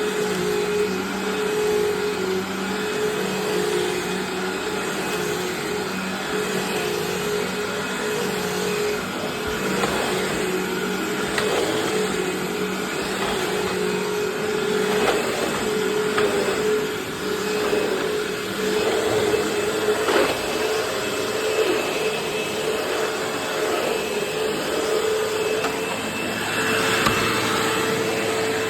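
A Eureka Maxima 4700D 12-amp bagless upright vacuum cleaner running steadily, its motor humming at an even pitch. Short clicks and rattles come now and then as it picks up debris.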